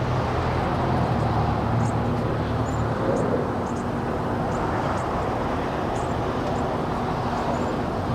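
Steady engine and traffic rumble with a low hum, holding level with no sudden events.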